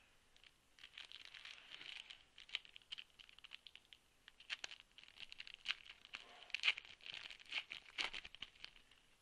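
Foil wrapper of a football trading-card pack being torn open and crinkled by hand, an irregular run of crackles and rustles.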